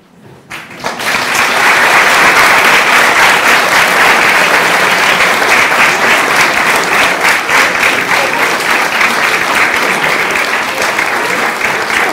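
Audience applauding, many people clapping at once; it starts about a second in, after a song ends, and keeps on steadily.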